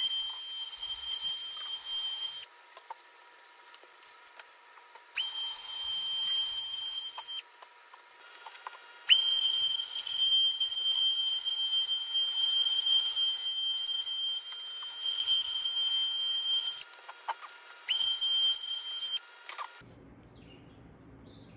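Cordless trim router running with a high, steady whine as it cuts a slot through the wall of a polyethylene plastic barrel, in four stretches with short pauses between them. Near the end it stops, leaving only a low, quiet hum.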